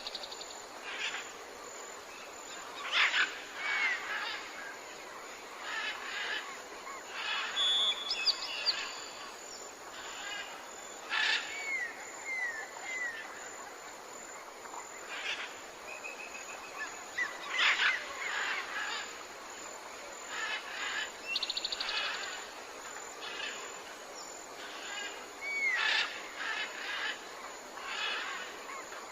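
Tropical forest ambience: many birds calling, with short whistles, falling slurred notes, rapid trills and chirps coming every second or two. Under them runs a steady high hiss like insects.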